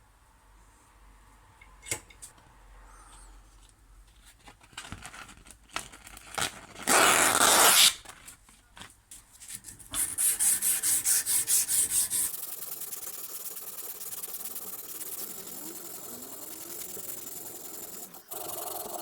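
Sandpaper being rubbed by hand on a steel wrench. There are scattered strokes and handling clicks, a loud scratchy stretch about seven seconds in, a fast run of short strokes about ten seconds in, and then a steadier hiss of rubbing.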